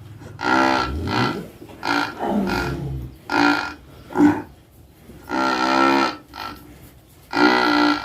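A very large cow snoring in its sleep: about six pitched, moo-like snores, some brief and some about a second long, at irregular intervals.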